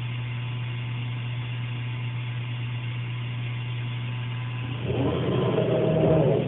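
Multicam 5000 CNC router running with a steady low hum. From about five seconds in, a louder motor whine as the spindle carriage travels toward the automatic tool-changer rack, stopping abruptly at the end.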